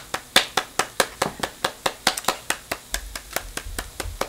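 A woman clapping her hands quickly and evenly, about five claps a second.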